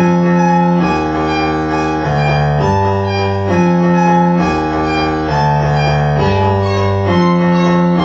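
Modular synthesizer music: sustained chords over a bass line that move together to a new pitch about every second, cycling through a short repeating progression.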